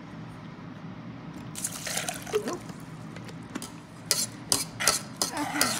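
Water poured from a glass bottle onto dry oats in a stainless steel saucepan, then a metal spoon stirring the mix and scraping and clinking against the pan several times in the second half.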